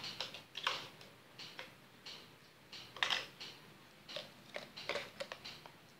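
A plastic spoon clicking and scraping against the inside of a cup while scooping chocolate, in short irregular ticks.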